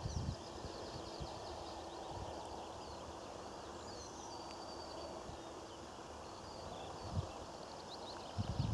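Steady outdoor field ambience with a few faint bird calls about halfway through and a single soft low knock near the end.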